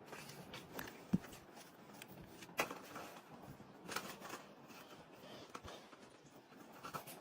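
Faint, scattered light knocks and taps with soft rustling, a few seconds apart.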